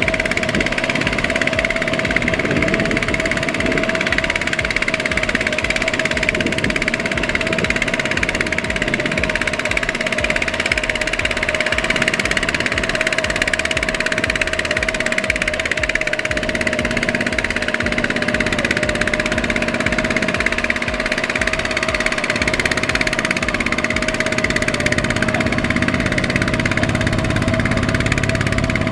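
Single-cylinder diesel engine of a two-wheel power tiller (walking tractor) running steadily with an even low chugging, as it hauls a loaded rice trailer through soft mud.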